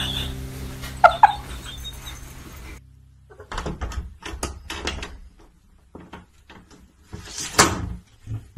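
Two short animal cries about a second in. Then a cat leaping at a door and clinging to its latch: a string of scratches, knocks and rattles on the door, the loudest knock near the end.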